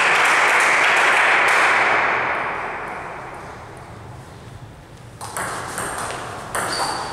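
Table tennis ball clicking off the rackets and table as a rally starts about five seconds in. Before that, a loud rushing noise fades away over the first few seconds.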